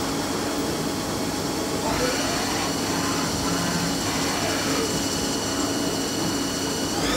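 Haas ST-10 CNC lathe running its axes without cutting: servo motors whine down and up in pitch each time the tool turret traverses, over a steady machine hum. A high whine steps up in pitch about two seconds in and again near the end.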